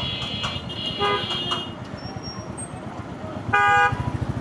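Vehicle horns honking in traffic: short high toots near the start and about a second in, then a louder horn blast about three and a half seconds in. Underneath, a motorcycle engine runs with a steady low throb.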